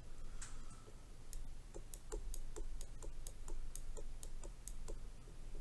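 Stylus pen tip tapping and stroking on a tablet's glass screen while colouring in, a quick run of light ticks about four or five a second.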